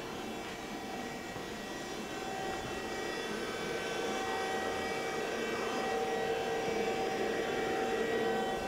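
Steady whirring hum of a powered-up Hardinge VMC 1000XP3 vertical machining center, with several steady tones running through it, growing gradually louder.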